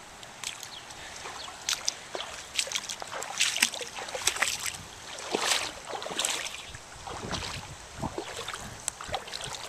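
Irregular splashing and sloshing of shallow river water, with short watery slaps and knocks, as someone wades along.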